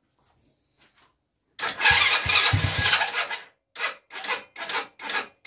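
ATV engine being cranked on its electric starter without catching. After a couple of faint clicks comes one crank of about two seconds, then a string of short cranks about two a second.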